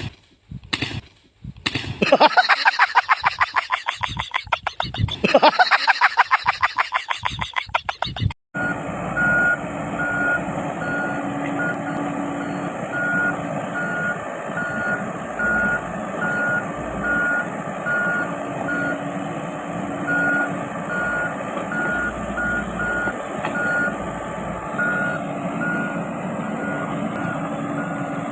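Komatsu PC78 mini excavator's travel alarm beeping over and over at an even rate, above the steady running of the machine. Before that, a loud, rapidly pulsing sound cuts off abruptly about eight seconds in.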